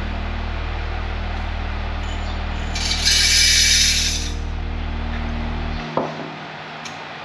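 Green coffee beans poured into a small drum roaster: a loud, rushing rattle lasting about a second and a half, over a steady low machine hum. The hum cuts off with a click about six seconds in.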